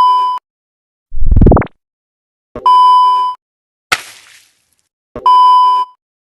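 Edited comedy sound effects, one after another: a short electronic bleep like a censor beep, a quick rising swoop, a second identical bleep, a short sharp crack, and a third bleep, with silent gaps between them.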